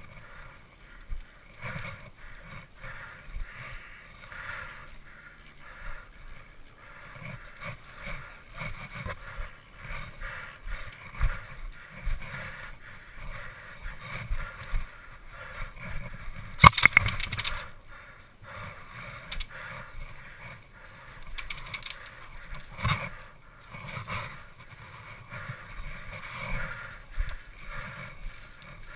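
Irregular thumps and rustling of an airsoft player moving on foot with gear, with one sharp loud crack about two-thirds of the way through.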